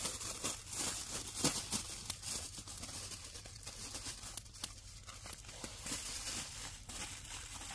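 Wrapping material crinkling and tearing in irregular rustles as a marinated chicken is wrapped up by hand.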